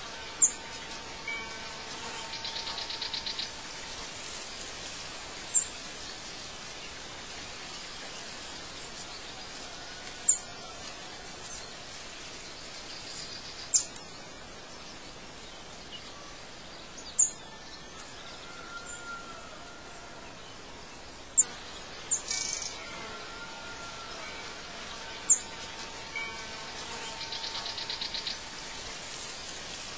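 Ambient bird chirps: short, sharp, very high calls every three to five seconds, about eight in all, over a steady soft hiss. A brief buzzing trill sounds about two seconds in and again near the end.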